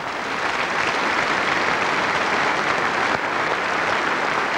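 A large audience applauding, swelling up at the start and then holding steady.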